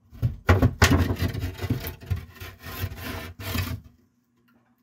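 Handling noise: loud rubbing and scuffing right on the camera's microphone as it is moved and covered, stopping about a second before the end.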